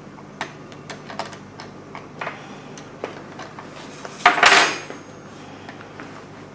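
Light metallic clicks and clinks of hands and tools working a folding bike's front brake cable and band, with one louder half-second metal clatter about four seconds in.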